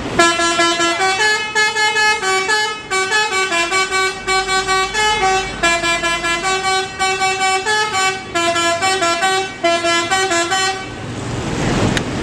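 Bus 'telolet' musical air horn playing a quick multi-note tune, the pitch stepping to a new note every fraction of a second in several short phrases. It stops about eleven seconds in, leaving engine and traffic noise.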